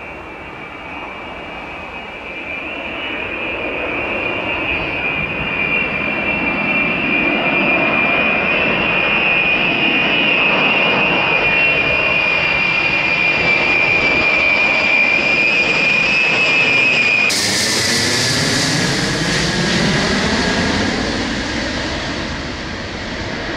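Ilyushin Il-76TD's Soloviev D-30 turbofan engines running, a strong high whine over a jet rush that grows louder over the first several seconds. About seventeen seconds in the sound turns suddenly harsher and hissier, and the whine drops in pitch.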